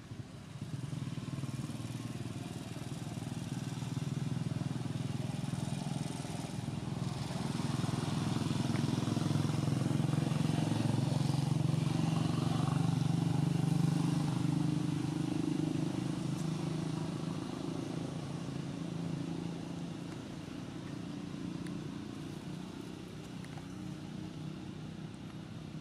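A motor vehicle's engine running with a steady hum, growing louder over about a dozen seconds and then fading away: a vehicle passing by.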